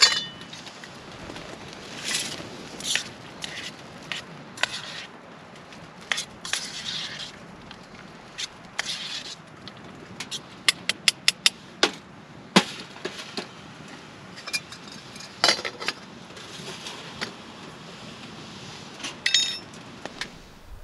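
Camp cooking by hand: a pot and food packets being handled, with light clinks, knocks and scrapes of cookware and the rustle of packaging, including a quick run of small clicks about halfway through.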